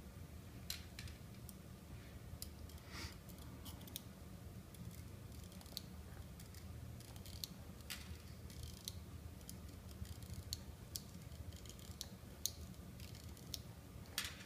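Zen Magnets 5 mm magnet spheres clicking as a chain of them is handled, curled into a ring and snapped onto a stack: faint, irregular sharp clicks, a few every second.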